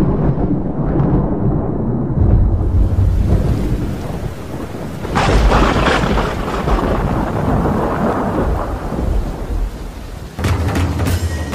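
Recorded thunderstorm sound effect: rolling thunder with a sharp clap about five seconds in, over a steady hiss of rain. Drums come in near the end.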